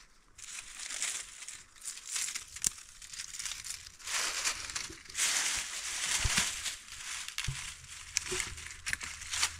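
Dry fallen leaves crunching and rustling as hands rake through them and gather small twigs, in irregular crackly handfuls, heaviest a few seconds in, with a couple of soft knocks later on.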